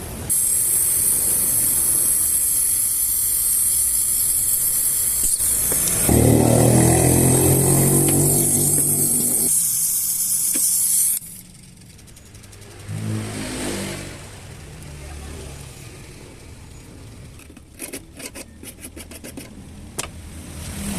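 Pressurised gas hissing loudly through refrigerator tubing during flushing, cutting off suddenly about eleven seconds in. A low motor-like drone joins for a few seconds midway, and a run of quick clicks comes near the end.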